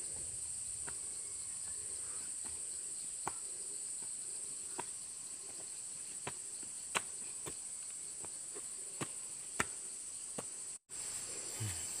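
Steady high-pitched drone of insects in the forest, with scattered sharp clicks and ticks every second or so. The sound cuts out for an instant near the end.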